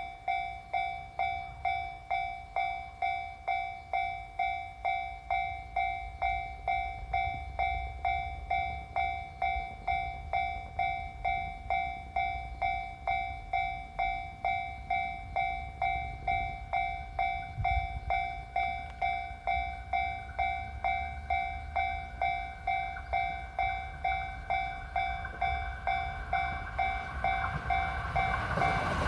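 Japanese level-crossing warning bell ringing evenly, about two strikes a second, the alarm that a train is approaching. A low rumble runs underneath, and at the very end the passing train's noise comes in loudly.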